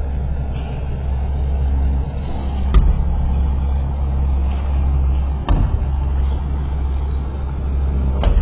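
Heavy construction machinery engine running steadily with a low rumble, and a sharp knock about every three seconds.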